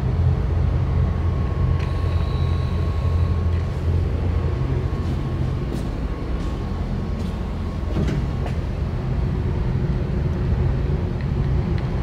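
Steady low rumble of distant city traffic. A faint steady whine runs through it and stops about eight seconds in, where there is a light knock.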